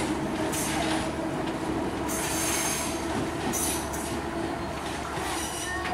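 Sri Lanka Railways Class S8 diesel multiple unit pulling away. Its engines run with a steady drone while the wheels squeal in several short high bursts as the train takes the curve out of the station.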